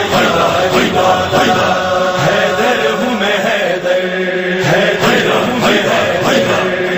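Vocal-only Shia devotional recitation in praise of Ali: voices chanting a drawn-out, layered melodic line without instruments.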